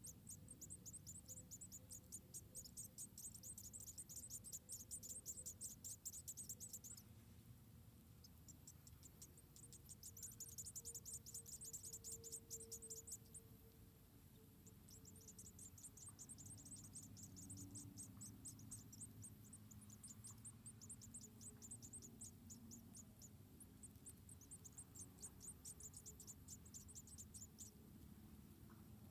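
Insects trilling in long bouts of rapid, high-pitched pulses, each bout lasting several seconds with short pauses between them.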